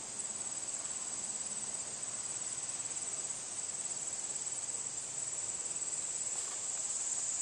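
A steady, high-pitched chorus of insects trilling without a break.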